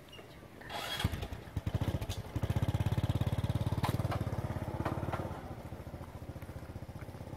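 A small engine running nearby with a rapid, even pulse. It grows louder about a second in, is loudest in the middle, then drops back to a lower level after about five seconds, with a few sharp clicks over it.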